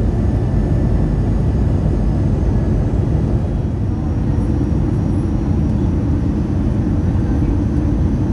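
Steady low rumble of airflow and CFM56 engines inside the cabin of an Airbus A319 airliner in flight.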